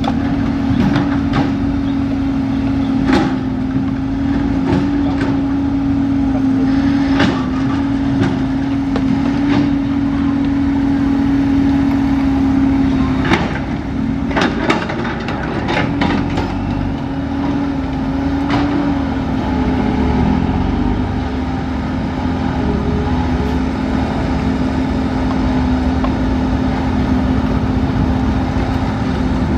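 Cat 320 excavator's diesel engine running under load with a steady drone, with scattered knocks and clatters as the bucket digs and dumps dirt and rocks into a dump truck's bed. A motorbike passes about halfway through.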